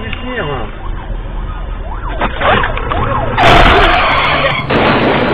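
Rising and falling wailing tones over low road rumble, then about three and a half seconds in a cartoon 'ka-boom' explosion sound effect, a sudden loud blast. A second loud burst follows near the end.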